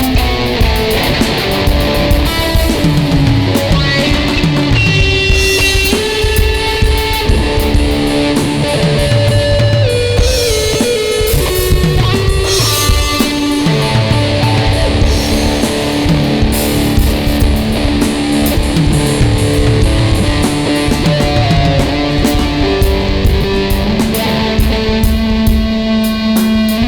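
Ibanez electric guitar and an Alesis electronic drum kit playing together in a continuous rock jam, with held guitar notes and chords over steady drum hits.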